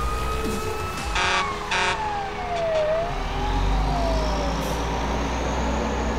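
Fire engine sound effect: an engine rumble, two short horn blasts about a second in, then a siren tone that glides down in pitch, rises briefly and glides down again.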